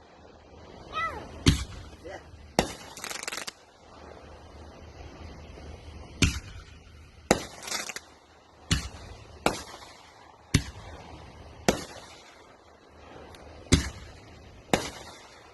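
Consumer fireworks going off: sharp bangs about once a second, some followed by a brief crackling hiss.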